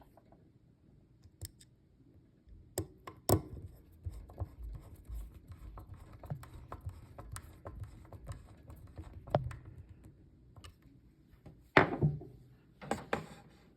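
Small clicks, scrapes and taps of two screws being driven in by hand to fasten an input jack cover plate, with a few sharper knocks, the loudest near the end.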